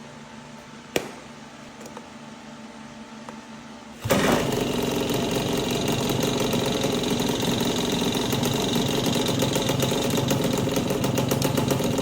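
Puch Magnum moped's 50cc two-stroke engine starting about four seconds in and then running steadily, with a fast even firing pulse. A single sharp click sounds about a second in, before it starts.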